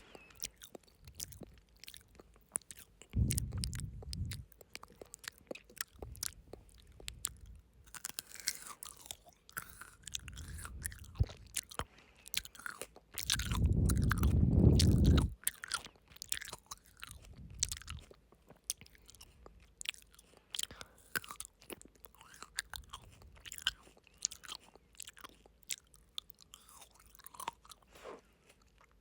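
Close-miked chewing of frozen grapes: crisp crunches and wet mouth clicks throughout. A loud low rush of breath on the microphone comes about halfway through, with a shorter one early on.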